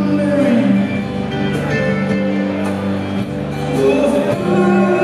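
Live band music: strummed acoustic guitar and drums, with a man singing.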